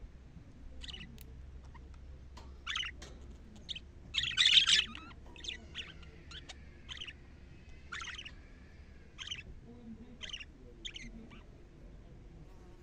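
Budgerigars calling in short, scattered chirps. The loudest is a longer, harsher chattering call about four and a half seconds in.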